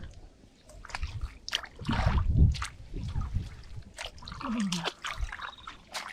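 Muddy water sloshing and splashing in irregular bursts as someone gropes and moves through it by hand.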